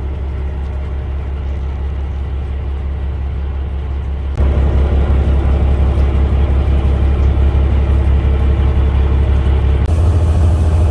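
Fishing boat's engine running steadily with a deep low hum; the sound steps abruptly louder about four seconds in and changes character again near the end.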